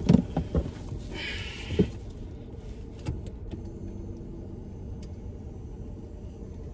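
Steady low rumble of a parked car's running engine, heard inside the cabin. A few light knocks and a short rustle of paper come in the first two seconds as food bags are handled.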